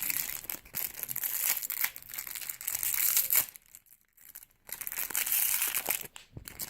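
Plastic wrapping of an LOL Surprise toy package crinkling and tearing as it is unwrapped by hand, with a pause of about a second midway.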